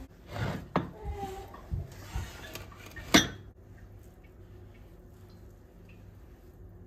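Light knocks and clatter of ceramic dishes, a few short clicks in the first half, the loudest a sharp click about three seconds in.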